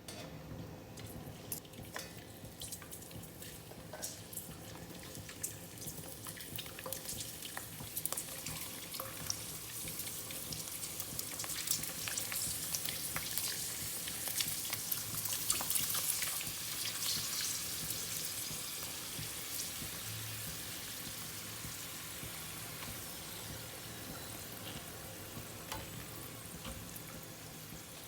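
Dried prawn cracker slices deep-frying in hot oil: a crackling sizzle that builds to its loudest about halfway through, then slowly dies down.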